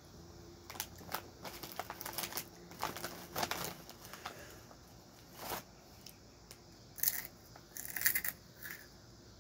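Crinkly plastic chip bag rustling and crackling as a hand digs chips out of it, then crunching of a chip being bitten near the end.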